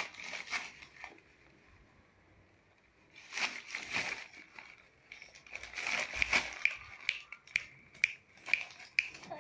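Newspaper being crumpled and rustled in a baby's hands, in bursts near the start, around three to four seconds in and around six seconds in. After that come short sharp crinkles of the paper, about two a second.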